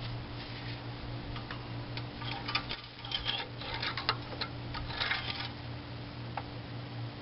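Light, scattered clicks and rustles of hands working in a Subaru Legacy's engine bay, pulling and checking the oil dipstick after an oil top-up, over a steady low hum. The clicks cluster in the first five and a half seconds.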